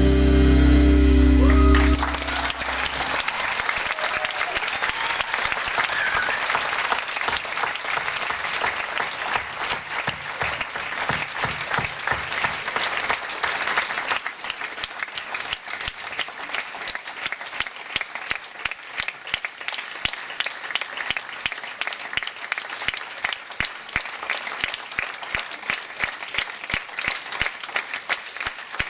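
A live band's song ends about two seconds in, and an audience applauds. About halfway through, the applause settles into rhythmic clapping in unison, about two to three claps a second.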